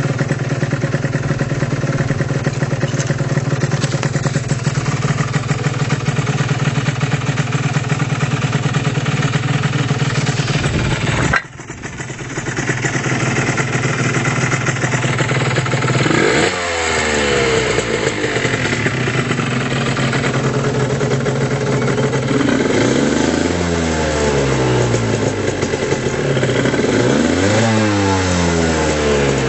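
Aprilia RS 125's single-cylinder two-stroke engine, fitted with an aftermarket Tyga exhaust, idling steadily and then blipped through several quick revs in the second half, the pitch rising and falling with each one. The sound breaks off abruptly for a moment about eleven seconds in.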